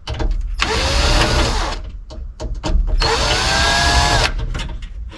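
Cordless power drill run in two bursts of a little over a second each. The motor speeds up and winds down each time, with a few short clicks between the bursts.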